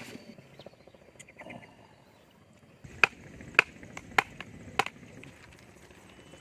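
Four sharp, evenly spaced chopping strikes of a blade on wood, about 0.6 s apart, in the second half.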